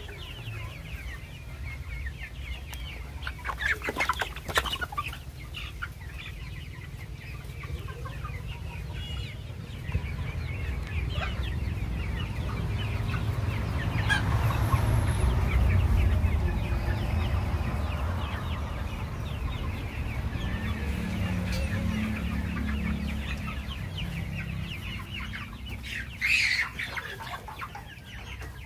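A flock of about two-month-old Kaveri chickens clucking and peeping together, with a few louder calls standing out. A steady low rumble runs underneath, strongest about halfway through.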